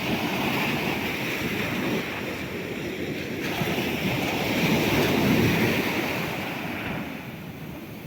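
Sea waves washing on the shore, a continuous rush of surf that swells to its loudest about five seconds in and then ebbs.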